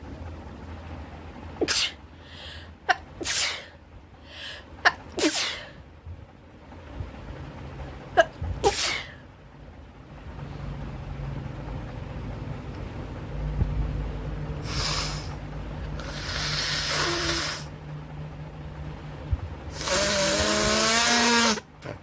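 A woman sneezing over and over: a quick run of short, sharp sneezes in the first quarter, two more a few seconds later, then longer, noisier nasal outbursts near the end, the last with a wavering, honking pitch.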